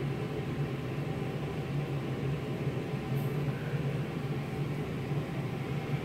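Steady room ventilation hum: a low, even mechanical drone with hiss above it, unchanging throughout.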